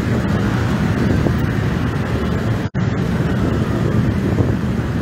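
Busy road traffic: cars and motorcycles pass close by with their engines running, in a steady dense noise. The sound cuts out for an instant a little past halfway.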